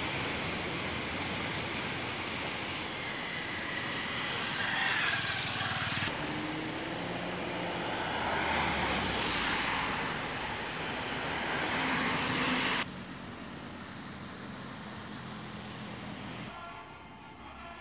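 Steady outdoor noise in several abrupt cuts: a wash of surf at first, then louder traffic with an engine hum for a few seconds, then a quieter stretch of distant road noise.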